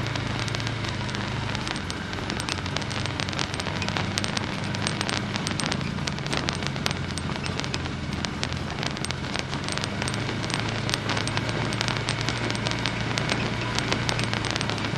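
A vehicle engine running low and steady under dense, irregular crackling and crunching.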